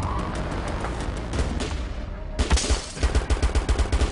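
A gunfight: a dense, overlapping volley of shots, then, after an abrupt change about two and a half seconds in, louder separate shots in quick succession, about six a second.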